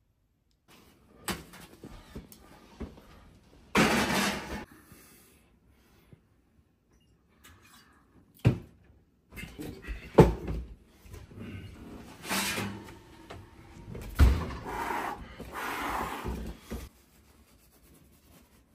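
Household handling noises: a series of knocks and clunks with rustling stretches between them, like doors or cupboards being opened and closed and things being moved about in a small room.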